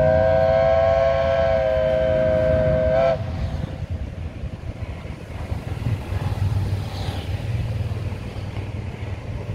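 A lake passenger ship's whistle sounding one long blast of two steady tones together, cutting off about three seconds in. After it, wind and lake water can be heard.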